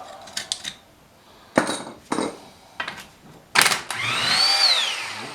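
Steel sockets and hand tools clanking against the cast engine block as sockets are tried on its bolts: a handful of sharp metal knocks, then a longer metallic ringing that rises and falls in pitch near the end.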